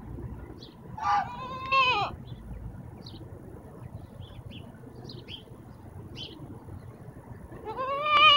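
Young goat bleating: a wavering call about a second in, then a louder, longer one near the end. Faint short high chirps sound in the background.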